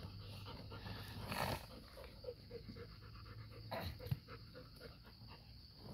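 Labrador retriever panting, with a short rush of noise about a second and a half in and another, with a low thump, around four seconds.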